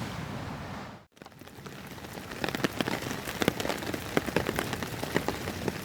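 Rain pattering on a surface: a fast, irregular scatter of small ticking drops that starts after a brief dropout about a second in.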